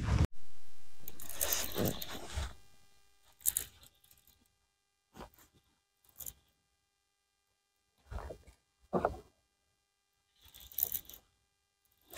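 Handling noise while reeling in a hooked fish on a kayak: a scraping rustle that fades out over the first two seconds, then scattered short rustles and clicks with near silence between them.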